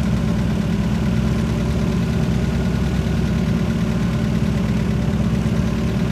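Off-road 4x4 engine idling steadily, a continuous low rumble with no revving.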